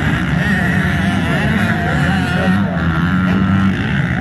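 Several motocross dirt bike engines running on the track, their pitch rising and falling as the riders rev through the turns.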